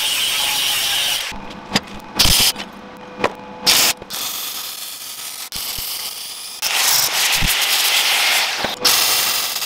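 Angle grinder cutting and grinding steel held in a bench vise, in two loud stretches, about the first second and again from about seven seconds in. Between them come several sharp knocks and a quieter steady hiss.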